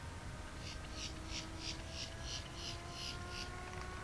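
Distant RC airplane's electric motor (Power 46 brushless) and propeller, a faint drone slowly rising in pitch, over a low rumble. A quick series of high chirps, about three or four a second, runs through the middle.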